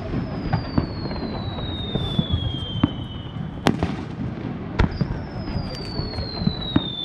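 Fireworks aerial shells going up with whistling tails: two long whistles, each falling slowly in pitch over about three seconds, the first at the start and the second about five seconds in. Sharp bangs of shells bursting come in between, the loudest near the middle.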